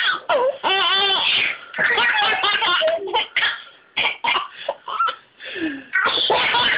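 Babies laughing hard in repeated bursts at a woman's pretend sneezes. The sneezes break in as short, sharp bursts between the laughs.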